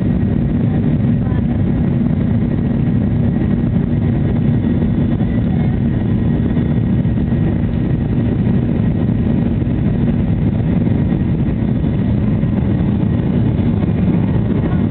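Boeing 737's turbofan engines running at takeoff thrust during the takeoff roll, heard from inside the cabin over the wing: a loud, steady rushing noise with a low drone.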